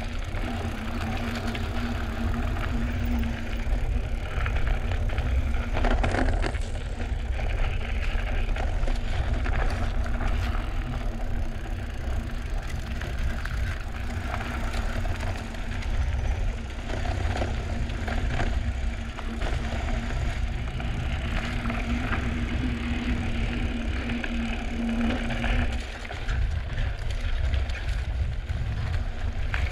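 A drop-bar mountain bike riding a dirt and rock trail: tyres crunching over gravel and rock with the bike rattling, a few sharper knocks as it hits rocks, over a steady low rumble.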